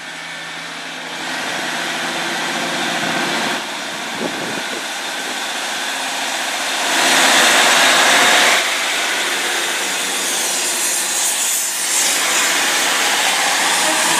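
GWR Class 150 Sprinter diesel multiple unit running into the platform close by: its underfloor diesel engines and wheels on the rails. The sound builds as the coaches come alongside and is loudest from about seven to eight and a half seconds in.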